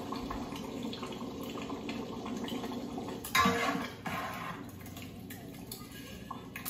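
Butter and masala sizzling and bubbling in a cooking pot. About three seconds in there is a louder burst of hissing.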